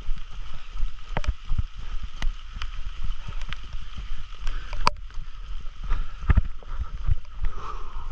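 Running footsteps in boots on a wet dirt trail: irregular thumps about two or three a second, with knocks and rustles from the camera jostled by the running, over a steady hiss.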